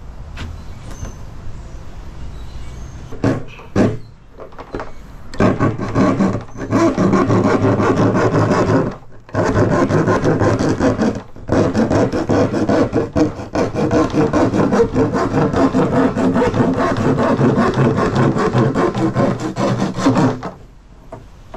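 Small handsaw cutting through the wall of a plastic drum: fast back-and-forth rasping strokes. They start in earnest about five seconds in, pause briefly twice, and stop about twenty seconds in.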